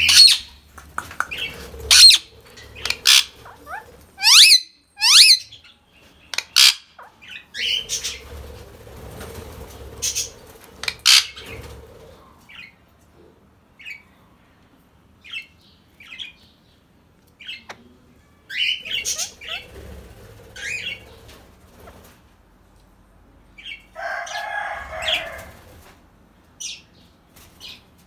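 Indian ringneck parakeets calling in short, loud, sharp screeches, some falling in pitch, scattered irregularly with quieter gaps, and stretches of rustling in between.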